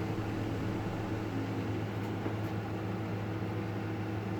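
Steady background machine hum, like a fan or motor, with a low drone and a faint even hiss.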